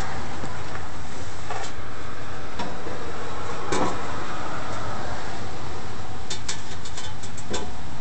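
Steady loud rushing noise with scattered light metallic clicks and knocks, then a quick run of about seven clicks near the end, from hand tools and parts being handled under the truck during the exhaust header install.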